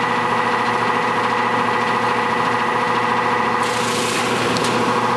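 The condenser fan of a Miller two-and-a-half-ton air conditioner runs wet and very noisy: a steady loud drone made of several held tones. The cause is the original two-blade fan blade, which the owner suspects resonates under the weight of the water. A hiss joins about three and a half seconds in.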